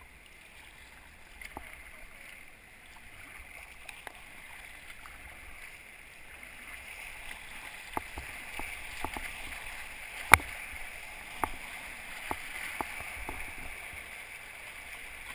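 Rushing water of small river rapids, a steady hiss that grows louder about halfway through as the inflatable kayak moves into the whitewater. A few sharp knocks sound over it, the loudest about ten seconds in.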